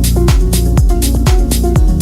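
Electronic background music with a steady four-on-the-floor kick-drum beat and synth notes.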